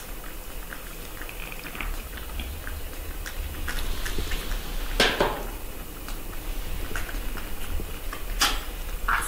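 Baby monkey sucking milk from a baby bottle: small wet clicks and smacks, with a louder sharp noise about five seconds in and again near the end.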